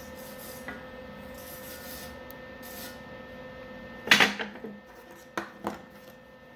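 One loud knock with a short ringing tail about four seconds in, followed by two sharper knocks over a steady background hum, with faint rubbing or rustling earlier on.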